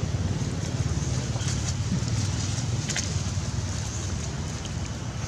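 A steady low rumble with a few brief, faint clicks over it, the sharpest about three seconds in.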